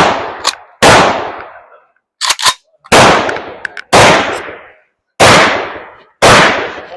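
Gunshots fired one at a time: one right at the start, then five more spaced about one to two seconds apart. Each is loud and sharp and rings out for about half a second. Fainter sharp cracks fall between them.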